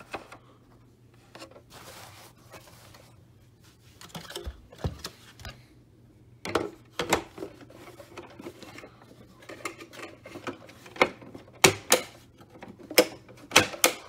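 A Hoover Turbopower 4000 upright vacuum's paper dust bag and plastic bag-compartment cover being handled and refitted: rustling, then a series of sharp plastic clicks and knocks, loudest in the last few seconds.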